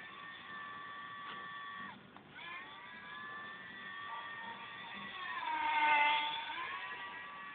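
Motor and propeller of a radio-controlled Snoopy Red Baron model plane in flight: a steady whine with several overtones that slowly shifts in pitch. Around six seconds in it grows loudest and dips lower in pitch, then rises again.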